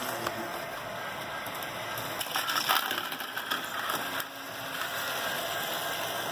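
HO scale model train running into plastic model truck trailers on the track: a clatter of plastic knocks and scrapes about two and a half seconds in, a few more knocks after it, over the steady running noise of the train.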